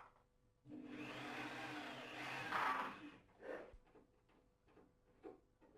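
Electric drill running for about two and a half seconds, boring pilot holes through the bath panel, with the pitch and strength rising near the end; a few light knocks follow.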